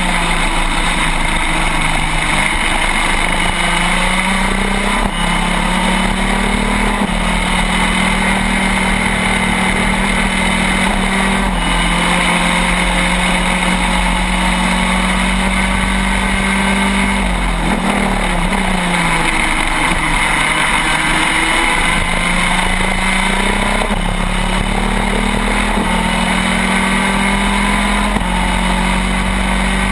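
Shifter kart's two-stroke engine at full racing speed, heard onboard over wind rush: the pitch climbs through each gear and drops sharply at every upshift. A little past halfway the revs fall away under braking with quick downshifts, then climb through the gears again.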